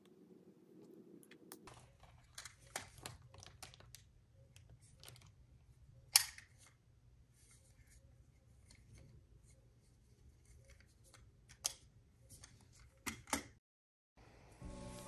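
Irregular small clicks, taps and rustles of objects being handled over a faint steady hum, the sharpest click about six seconds in and a short cluster near the end.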